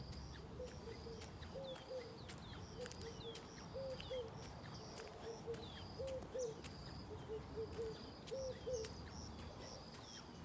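Birds calling outdoors: a low two-note call repeating every second or so, over high chirps and short falling whistles.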